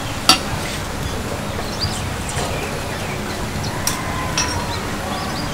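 Steady outdoor background noise with a low rumble and faint bird chirps. A few sharp clicks, one just after the start and one about four seconds in, come from produce and utensils being handled on the table.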